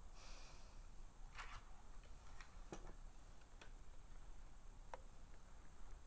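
Faint handling sounds: a soft rustle at the start, then four scattered light clicks over a quiet background.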